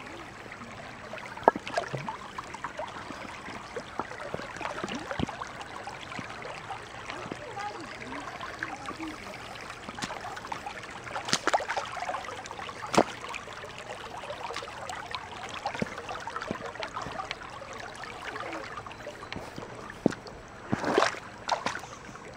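Shallow creek running over rocks, with scattered knocks and splashes of boots wading through the water and stepping on stones; a louder splash near the end.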